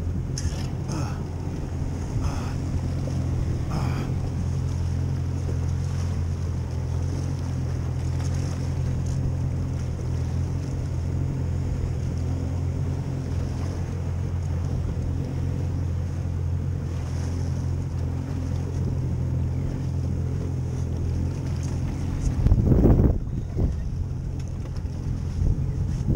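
Boat's outboard motor running steadily, with some wind on the microphone. About 23 seconds in, a brief loud rushing surge stands out over the engine.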